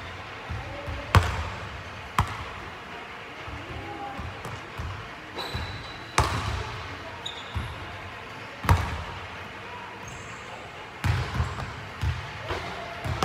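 Basketball bouncing on a hardwood gym floor: sharp single thuds spaced a few seconds apart, each echoing in the big hall, then a quicker run of bounces near the end.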